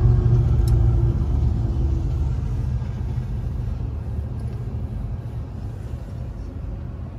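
Loaded coal hopper cars of a freight train rolling past a grade crossing, heard from inside a car: a steady low rumble that slowly fades.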